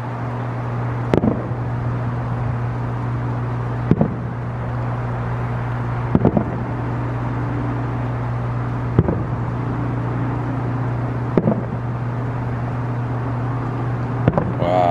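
Distant fireworks going off, a short boom every two to three seconds, over a steady low hum.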